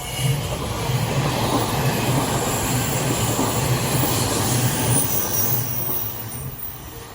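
Odakyu Line electric train passing over a level crossing: a loud rumble of wheels on rail with a low hum that comes up within the first half second and fades near the end. The crossing's warning bell rings in a steady beat, coming through again as the train fades.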